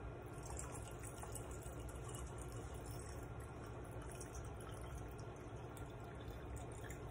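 Liquid poured in a thin stream from one glass mason jar into another jar of lemonade: a faint, steady trickle and splash.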